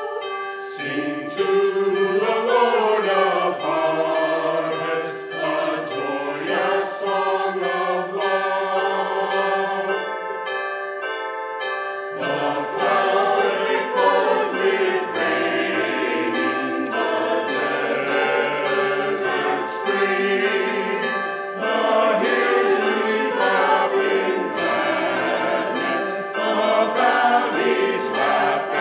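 Church choir of mixed men's and women's voices singing a sacred choral piece, with a brief thinner passage about ten seconds in where the low voices drop out.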